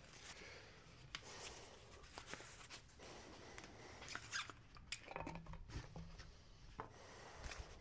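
Faint handling noises at a workbench: scattered small clicks, taps and scrapes as a screen-printing squeegee and tools are picked up and moved.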